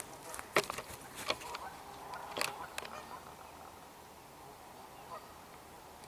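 Canada geese honking, agitated by a mute swan: a few loud, harsh honks in the first three seconds, then fainter calls.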